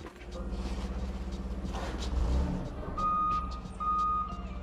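A heavy vehicle's engine running with a steady low pulsing rumble. From about three seconds in, its reversing alarm beeps a single high tone, a little faster than once a second.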